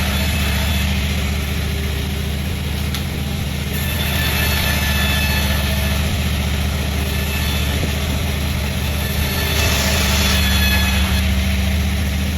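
Sawmill machinery engine running steadily, with a brighter hiss swelling twice: about four seconds in, and again near ten seconds.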